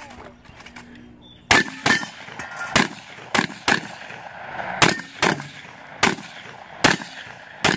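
Shotgun fired in a rapid string, about ten loud sharp shots at uneven intervals, beginning about a second and a half in.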